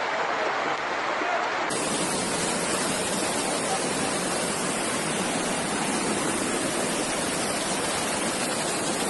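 Floodwater rushing, a loud steady wash of noise, with a cut about two seconds in to another shot of the same rushing water.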